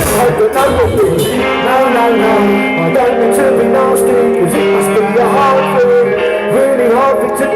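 Live rock band playing: guitar chords and held notes over drums and cymbals.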